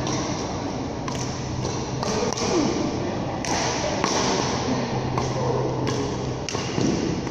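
Badminton rally in a reverberant sports hall: sharp racket hits on the shuttlecock about once a second, with a couple of short squeaks that fit court shoes on the floor. A low hum comes and goes behind them.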